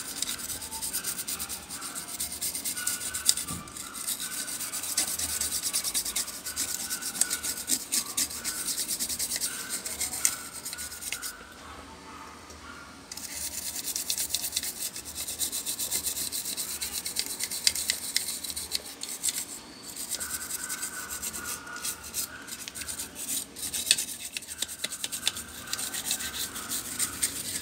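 A toothbrush scrubbing a graphics card's circuit board clean: a fast, scratchy rasp of bristles over the components, with a short pause about twelve seconds in.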